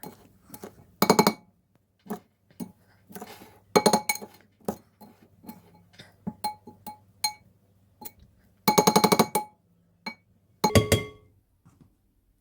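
A metal utensil clinking rapidly against a glass bowl of hot cooked rice in several quick bursts, each strike leaving a short ringing tone, while the rice is loosened and fluffed.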